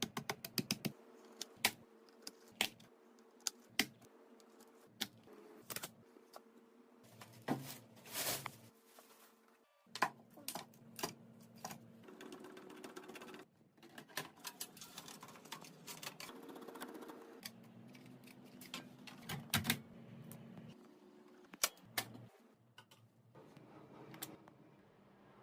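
Irregular sharp clicks and taps of small plastic and metal parts being handled and snapped into place while a PC is assembled, with a faint low hum underneath.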